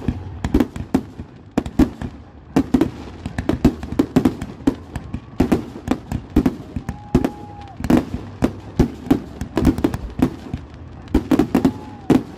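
Aerial firework shells bursting in a rapid, irregular barrage of sharp bangs, often several a second.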